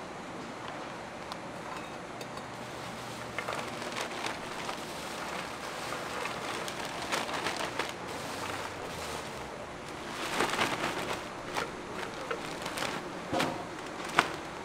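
Sugar-coated fried dough twists being pushed down a stainless-steel chute into a plastic bag: several spells of crisp pieces clattering and crackling against metal and plastic, with a sharp knock near the end.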